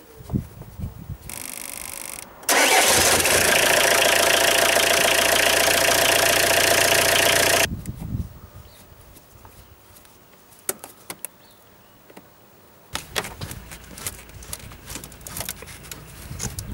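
A direct-injection diesel car engine is cranked by its starter and catches, then runs loud and steady at idle for about five seconds before cutting off abruptly. Near the end come rustling and clicks of hands handling the rubber air-intake hose and its clamp.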